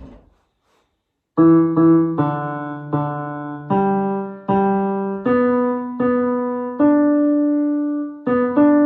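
Piano playing a single-line tenor choir part, one note at a time, as a note-learning guide. About a dozen struck notes, starting a little over a second in after a brief silence.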